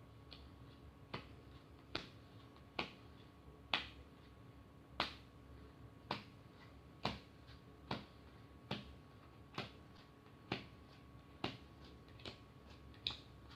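Playing cards dealt one at a time onto a felt-covered table, a light snap with each card at about one a second.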